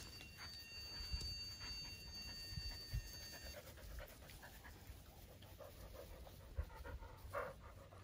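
Dogs panting softly, with a few low thumps and a faint steady high tone in the first few seconds.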